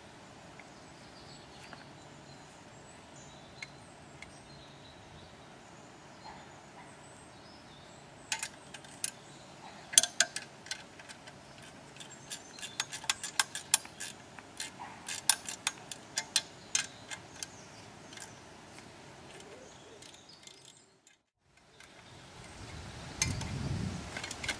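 Hands adjusting the aluminium frame and handle clamp of a chainsaw log mill: irregular sharp metal clicks and knocks, in clusters through the middle, over a faint background. A low handling noise rises near the end.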